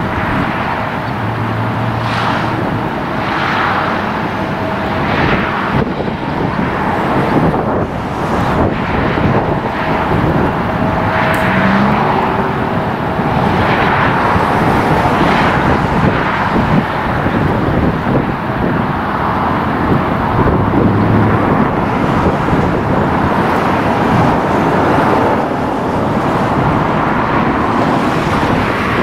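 Continuous outdoor din of road traffic and jet aircraft noise, with wind buffeting the microphone; the noise swells and fades every second or two.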